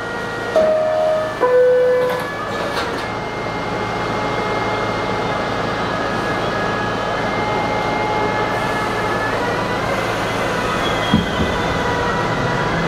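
Two-tone door chime on an R68 New York subway car, sounded twice near the start, then a clunk as the doors close. The train then pulls away: wheels running on the rails and traction motors whining, the noise building slowly, with a motor tone rising near the end.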